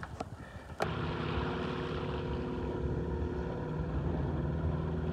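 A small boat's motor running steadily at an even pitch, under wash and wind noise. It cuts in abruptly about a second in.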